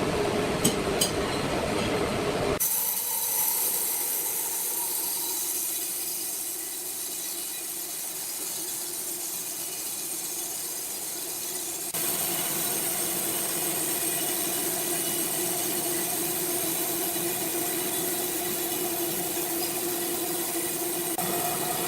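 Steady machinery hum with hiss and several unchanging tones. It changes abruptly about two and a half seconds in and again about halfway through, as if the recording cuts between machines.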